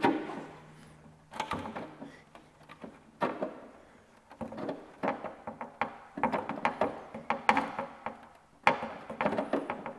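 Hand-made slotted steel flanging tool working the sheet-metal flange of a 1948 Plymouth fender's gas-cap opening, bending it by hand. The sound is metal-on-metal clicks and scrapes in several short bursts.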